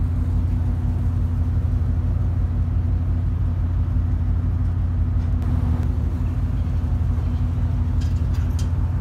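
Steady low drone of a fast ferry's engines running, heard from the open deck.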